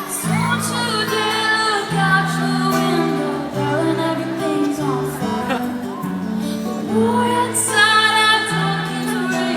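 Live pop performance heard from the audience: a woman singing a slow, gentle melody over sustained backing chords that change every second or two.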